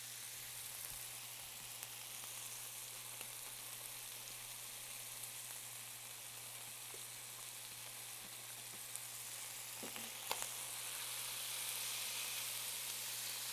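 Ground beef sizzling and searing in a hot skillet as it browns, a steady hiss that grows a little louder near the end. Utensil taps against the pan about ten seconds in.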